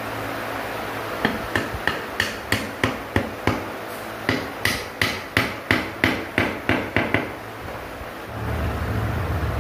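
Hammer blows on wood, about three a second in two runs with a short pause between, as a wooden leg post is knocked into a joint of a glued frame. A steady low hum comes in near the end.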